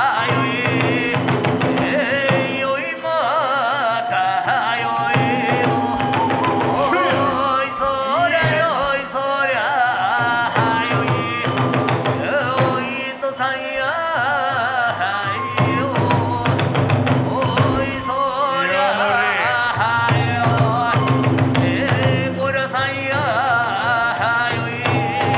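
Hiroshima kagura music: a wavering bamboo-flute melody over a continuous beat of taiko drum and small hand cymbals, with some chanted singing.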